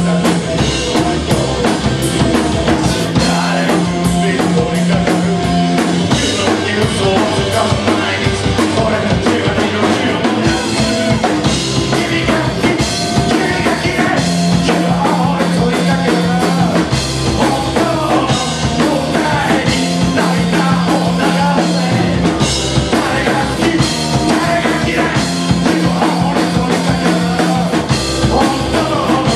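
Live punk-rock band playing loud and without a break: electric guitars over a Pearl drum kit keeping a steady driving beat.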